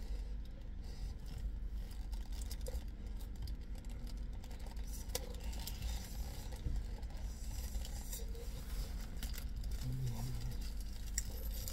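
A wrap being eaten: chewing and the crinkle of its paper wrapper, in scattered small clicks and rustles over a steady low hum.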